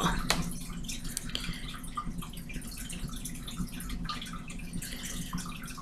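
Faint handling noise: scattered light ticks and rustles over a steady low hum.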